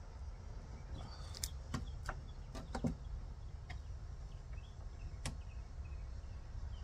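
Scattered light clicks and taps from handling the car door's panel and parts, about eight in the first four seconds and one more a little after five seconds, over a steady low rumble with faint high chirps in the background.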